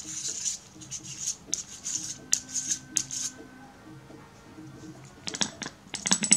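Fingertips rubbing on the threaded front retaining ring of a Carl Zeiss Jena Sonnar 2.8/180 lens as it is unscrewed by hand: a run of short scratchy rubbing strokes. Near the end come a few light clicks and taps.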